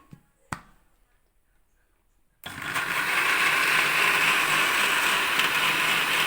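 Electric blender switching on about two and a half seconds in and running steadily, puréeing boiled onion in its cooking water. A small click comes just before, about half a second in.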